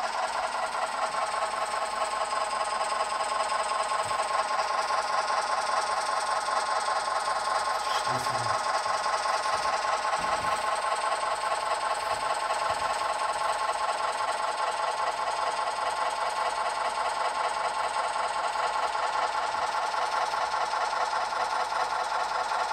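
Gauge 1 model steam-crane train running along the track, making a steady, fast mechanical rattle with a hiss over it.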